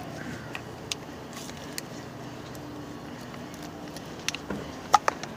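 A few sharp clicks and taps from the plastic heater-hose quick-connect fitting and its clip being handled, the loudest two close together near the end, over a steady low hum.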